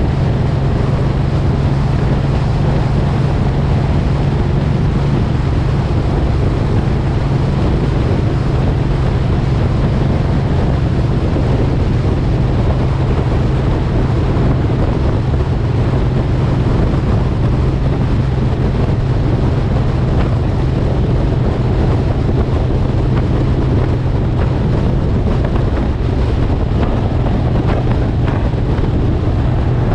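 Suzuki M109R's 1783 cc V-twin engine running steadily at cruising speed, a constant low engine note under wind noise on the microphone.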